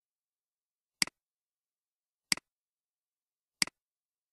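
Computer mouse clicks: three short clicks about 1.3 seconds apart, each a quick double tick of button press and release.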